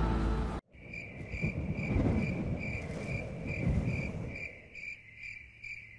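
Music cuts off about half a second in, giving way to crickets chirping in an even rhythm, about two or three chirps a second. Beneath the chirping, a low rumbling noise fades away by about four and a half seconds in.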